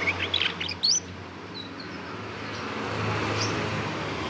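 A 3-month-old male canary, a Scotch Fancy and Lizard cross, gives a quick run of short rising chirps in the first second. This is the young bird practising its twittering warble as it learns to sing. After that come only a couple of faint single chirps over a steady background rumble that swells around three seconds in.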